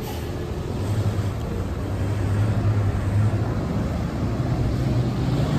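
Refrigerated box truck driving past, a low engine hum that swells about a second in and stays loud as the truck goes by.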